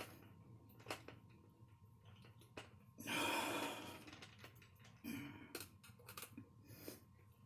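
Faint scattered clicks and taps of small plastic parts and a hand tool being handled while screws are driven into an RC car chassis, with one louder breathy exhale about three seconds in.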